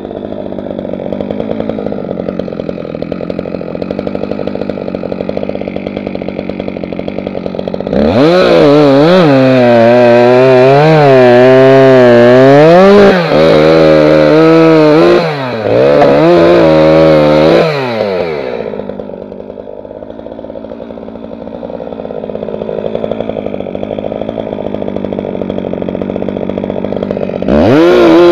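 Holzfforma G366 two-stroke chainsaw, a copy of the Stihl MS361 with its top revs raised to Stihl level. It idles, then runs at full throttle cutting through a log for about ten seconds, its pitch wavering as it loads up in the wood. It drops back to idle and revs into another cut near the end.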